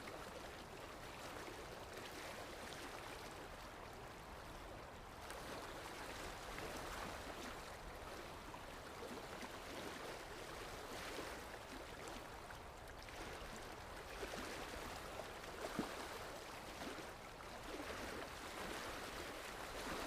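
Water lapping gently with wind, a soft splashing that swells and eases every few seconds over a low rumble, with a couple of slightly sharper splashes past the middle.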